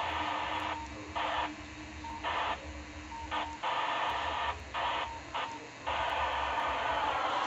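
FM hiss from a handheld dual-band radio's speaker tuned to the SO-50 satellite downlink, repeatedly quieting and bursting back as a weak signal fades in and out, then steady hiss from about six seconds in.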